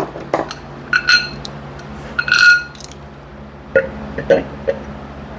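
Steel sprocket bolts and the drive sprocket clinking against each other as they are handled and lined up on the wheel hub: a few sharp metallic clinks with a brief ring, then a couple of duller knocks near the end.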